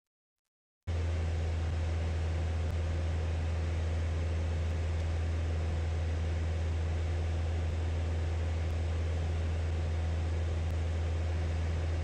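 Single-engine light aircraft's engine and propeller running steadily in cruise, heard inside the cockpit as an even low drone with a hiss above it. It starts about a second in, after a moment of silence.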